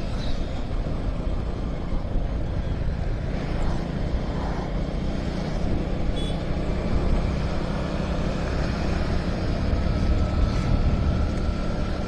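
Steady ride noise from a motorcycle on the move: a low engine hum mixed with wind rushing over the microphone.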